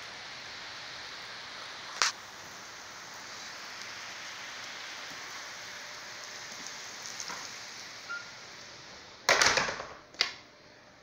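Steady hiss of room tone from a handheld recording, with a sharp click about two seconds in, then a brief scuffing noise near the end followed by another click.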